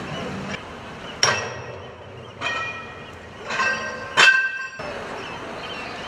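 Metal struck four times, each a sharp clang with a ringing tail. The blows come about a second apart, the last two closer together.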